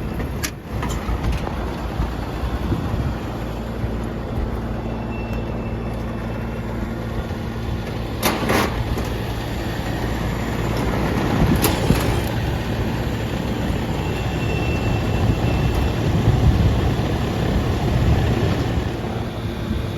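Steady hum and drone of running air-conditioning equipment, a condenser fan and compressor unit, with a few sharp metal clicks and knocks of a service panel and screws being handled.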